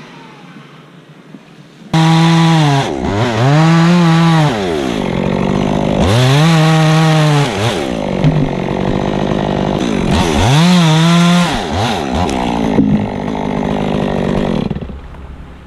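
Chainsaw cutting wood: it starts loud and sudden about two seconds in, running at high revs, and its pitch sags and climbs back three times as it bogs in the cut and revs up again, before it drops away near the end.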